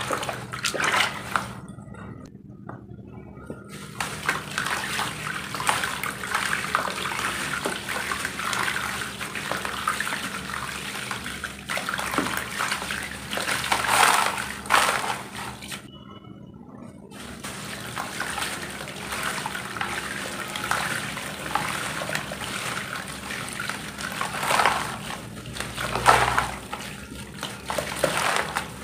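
Hands sloshing and splashing water in a plastic tub, with handfuls of dry roasted dirt crumbled and dropped into the muddy water, pattering and splashing in uneven surges. The biggest splashes come about halfway through and near the end.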